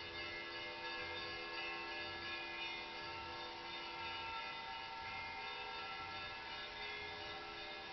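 Church bells ringing, a dense cluster of overlapping tones that hold steady, with a low pulse beneath.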